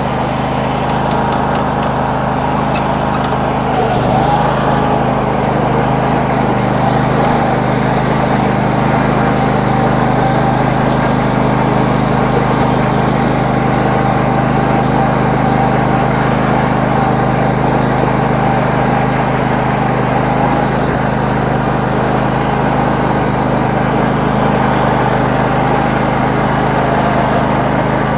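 Noma lawn tractor's small engine running steadily, a little louder from about four seconds in.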